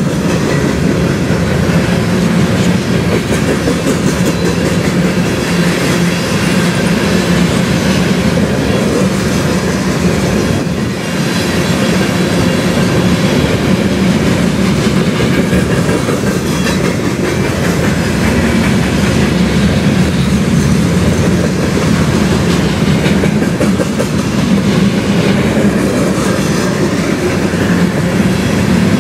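Covered hopper cars of a CN sand train rolling steadily past, their steel wheels running over the rails. The noise dips briefly about eleven seconds in.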